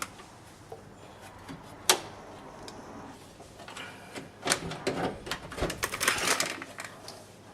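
Clicking and rattling of a plastic linkage clip and metal rod inside a Mitsubishi Verada rear door as the outer door handle linkage is worked loose, with a sharp click about two seconds in and a busy run of clicks and rattles in the second half.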